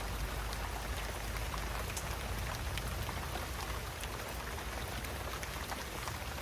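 Steady rain falling, with many separate drops heard striking close by and a low rumble underneath.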